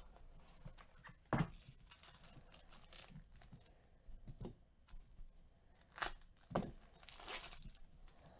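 Foil wrapper of a trading-card pack being torn open and crinkled by gloved hands: a series of faint separate crackles and rustles, with a longer rustle about seven seconds in.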